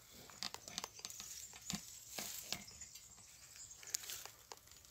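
Faint rustling and light crackling clicks of olive leaves and twigs as the branches are handled and pushed aside.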